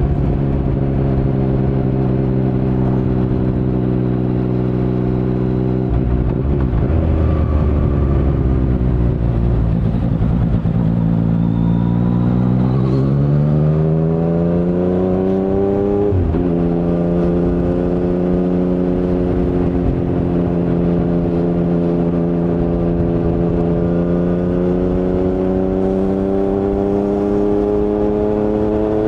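2019 Yamaha MT-09's 847 cc inline-three through an Akrapovic carbon full-system exhaust with no dB killer, under way: it cruises steadily, then the pitch falls as the throttle is rolled off about six seconds in. It then climbs under acceleration until a sudden drop as it shifts up a gear, after which it pulls on steadily with the pitch slowly rising near the end.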